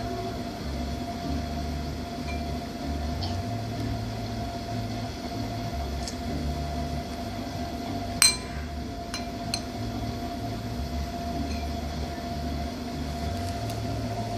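A steady low rumble and hum, with one sharp clink a little past the middle, the loudest sound, followed by two lighter clicks about a second later.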